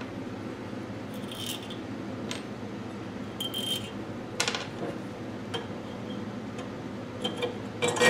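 Light metal clinks and clatters as a steel exhaust header pipe is handled on a workbench and test-fitted against the engine's exhaust studs, several separate knocks with a louder clatter near the end, over a steady low hum.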